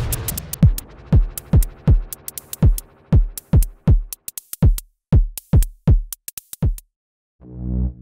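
Electronic drum-machine beat: deep synthesized kick drums that drop steeply in pitch, about two a second, with crisp hi-hat-like ticks between them. The beat stops about seven seconds in, and a sustained synth chord swells in near the end.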